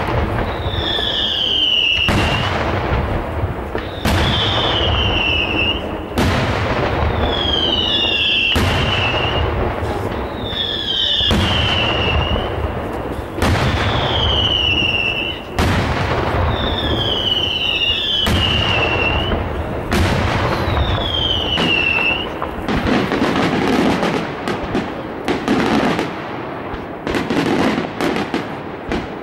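Daytime aerial fireworks shells bursting in loud bangs about once a second, with a high falling whistle repeated about every two seconds. From about 23 seconds in, the bangs come faster, with crackling.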